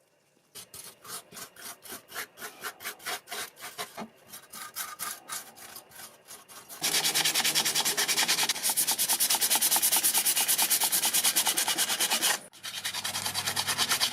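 Hand sanding or filing: rhythmic back-and-forth rubbing strokes, about two to three a second at first, then much faster and louder from about seven seconds in, pausing briefly near the end before starting again.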